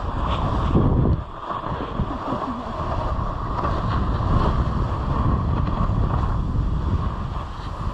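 Snowboard sliding and scraping over choppy, chopped-up snow on a downhill run, with wind buffeting the microphone. It grows louder for a moment about a second in, then drops off suddenly.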